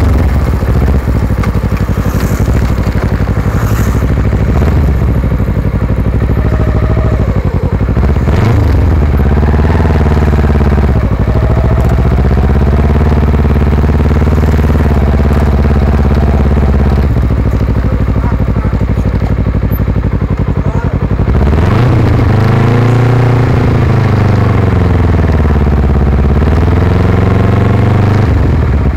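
Kawasaki Ninja 250 FI's parallel-twin engine heard through a Yoshimura carbon-fibre exhaust, recorded right beside the muffler while riding. The exhaust note climbs and drops several times as the throttle is worked, with a deep dip about three-quarters through.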